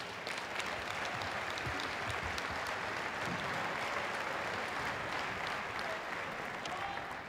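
Crowd applauding in a school gymnasium: steady clapping throughout, easing off slightly near the end.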